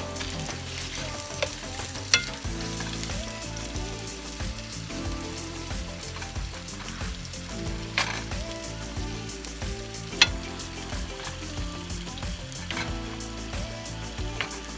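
Cube steak slivers and onions sizzling steadily as they fry in oil in a seasoned pan, with a cooking utensil clacking sharply against the pan three times as the meat is stirred.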